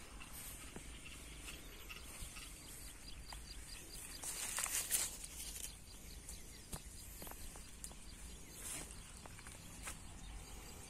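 Quiet rural outdoor ambience with faint, rapid insect chirping and scattered small clicks. About four seconds in, a louder hiss lasts for roughly a second and a half.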